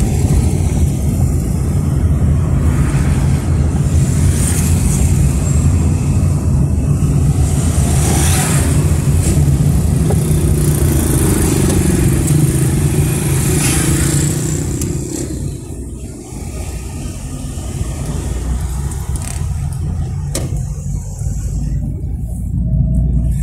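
A car's engine and road rumble, heard from inside the moving car. The engine note rises for a few seconds around ten seconds in, and the noise drops somewhat about fifteen seconds in before building again.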